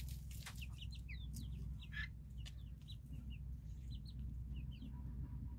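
Local free-range chickens and their half-grown chicks calling as they forage, with many short high-pitched peeps scattered throughout, over a steady low rumble.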